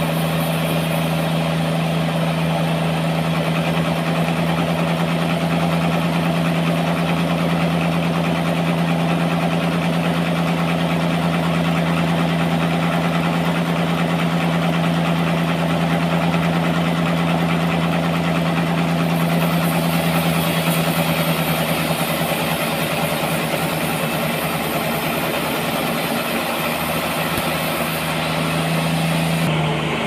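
Sawmill machinery running steadily with a constant low hum and a dense hiss; the hum drops in pitch right at the end.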